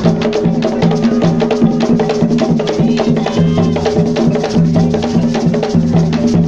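Folk dance music with a fast, steady drum and percussion beat over a repeating low pitched line.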